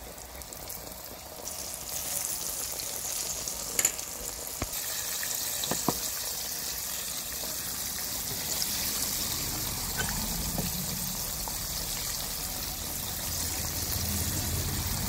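Flour-coated chicken pieces deep-frying in hot oil in a pot: a steady sizzle that grows louder about two seconds in. Two sharp clicks, about four and six seconds in.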